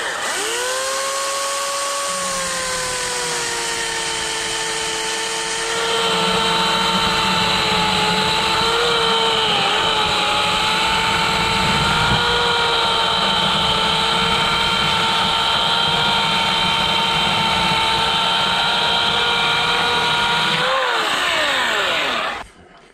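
Homelite 14-inch corded electric chainsaw with a 9-amp motor spinning up to a steady whine, then cutting through a log: about six seconds in the sound grows louder and rougher as the chain bites into the wood, the pitch dipping slightly under load around ten seconds in. Near the end the trigger is released and the motor winds down with a falling whine.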